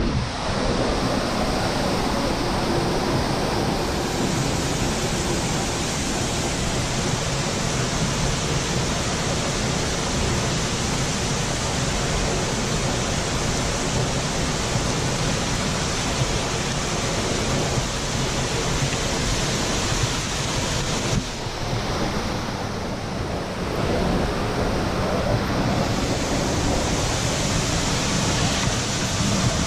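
Waterfall water pouring and splashing in a steady rush. It turns duller and a little quieter for a few seconds about two-thirds of the way through.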